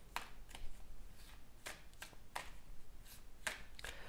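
Tarot cards being shuffled by hand: faint, irregular soft clicks and flicks of the deck.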